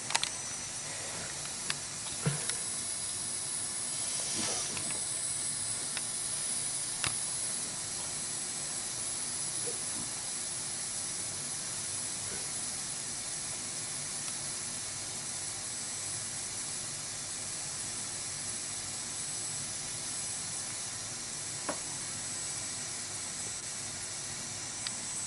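Steady static hiss from a radio receiver with no station signal coming through, with a few faint clicks.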